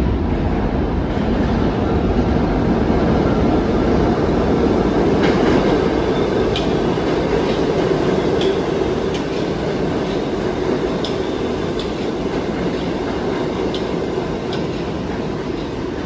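R68A subway train running into the station alongside the platform: a loud rumble of wheels and motors that builds to a peak about five seconds in, then eases off, with short sharp clicks from the wheels on the rails scattered through the second half.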